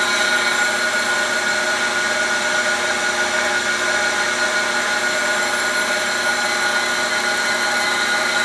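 Cylindrical grinder running, its grinding wheel spinning on a steel shaft on a fine feed: a steady whine with a hum beneath it, taking a light finishing pass down to tenths of a thousandth.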